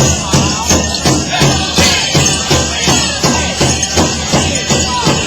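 Powwow drum song: a large drum struck in unison by a drum group in a steady beat of about three strokes a second, with a constant jingling shimmer over it.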